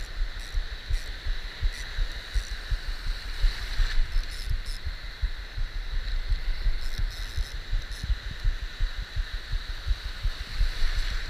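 Shallow surf washing and sloshing close to the microphone, with many irregular low thuds of water against it.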